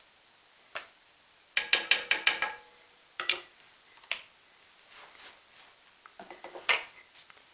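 Kitchen utensils clinking and tapping against dishes: a single tap, then a quick run of ringing clinks about a second and a half in, and scattered taps after.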